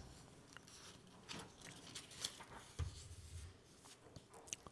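Quiet pause in a room: faint, scattered small clicks and rustles, with a soft low thump a little under three seconds in.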